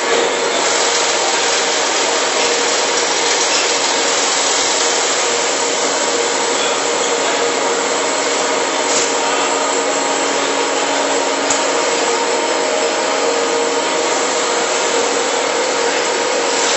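Steady machinery noise from an animal-feed pellet bag packing line: an even rushing sound with a faint hum under it, broken by two brief clicks around the middle.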